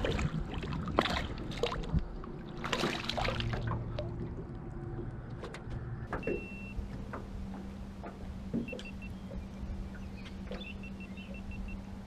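A hooked bass thrashing and splashing at the surface beside a small aluminum boat for the first few seconds. After that come quieter water sounds with a low steady hum and occasional light clicks.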